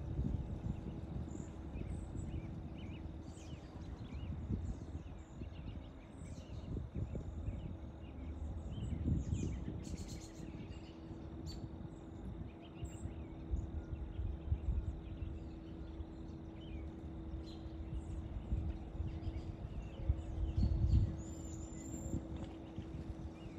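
Outdoor field ambience with scattered faint bird chirps and irregular low rumbles, loudest twice. A faint steady hum comes in about halfway through.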